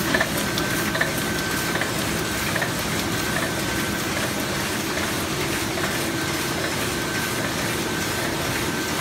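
Heidelberg GTO 52 four-colour sheet-fed offset press running: a steady mechanical whir with a held high tone, and a faint regular tick a little more than once a second that fades into the steady noise.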